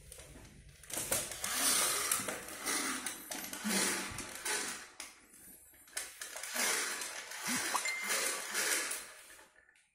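Plastic toys clattering and rustling as a small child rummages through them, in repeated bursts with short pauses, dying away near the end.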